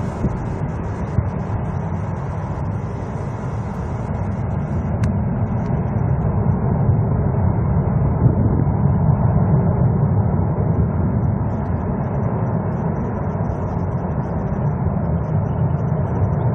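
Jet engines of an Airbus A380 airliner rumbling steadily during a low display pass, swelling a little toward the middle.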